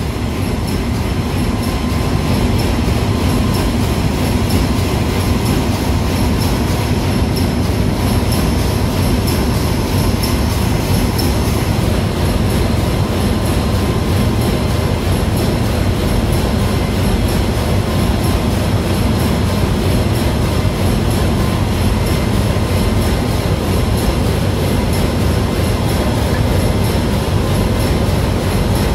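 Loud, steady engine-room machinery noise: a constant dense rumble with a few faint, steady whines on top, unbroken throughout.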